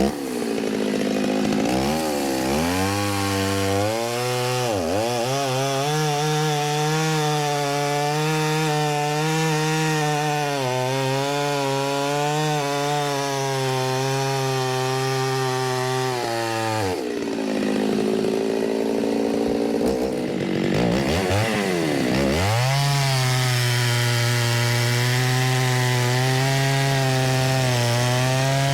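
Stihl chainsaw cutting oak firewood rounds, its engine held at steady high revs under load. The revs drop and climb back a few times, about five seconds in and again between about 17 and 22 seconds, as the throttle is let off and opened again.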